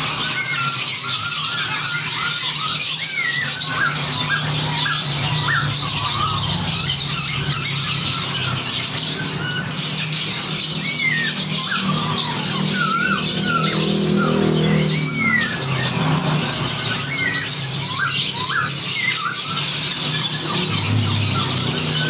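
Dense chorus of many songbirds of different kinds chattering and calling over one another, with short whistles and squeaky notes coming thick and fast. It is a mixed recording made to sound like a flock chattering back and forth in the wild.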